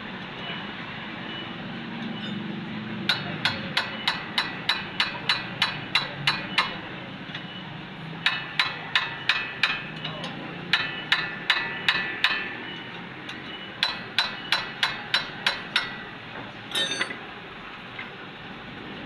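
Hammer striking metal in four quick runs of blows, about three to four a second, each blow ringing with a metallic tone. A short rattle follows near the end, over a steady low background hum.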